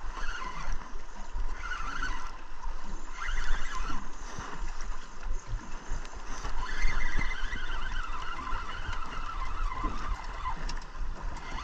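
A spinning reel being cranked to bring in a hooked char, over a steady low rumble with scattered ticks and knocks.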